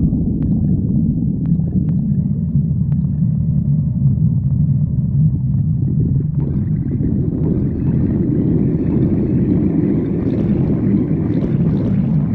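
Human stomach growling, recorded close up: a loud, steady low rumble, with higher gurgling joining in about halfway through.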